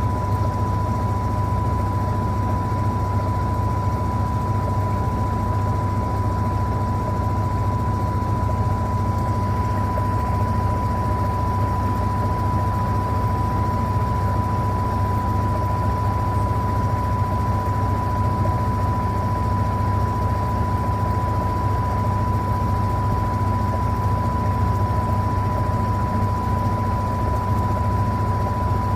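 Electrolux LTA15 washing machine running steadily: a constant low motor hum with a single steady high-pitched whine over it.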